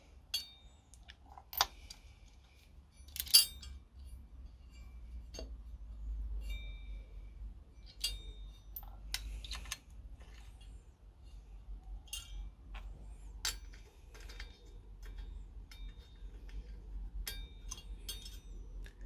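Steel nuts, washers and studs clinking against a steel engine lift plate as they are handled and fitted by hand: scattered light metallic clicks and taps, a few with a short ring, the sharpest about one and a half and three and a half seconds in.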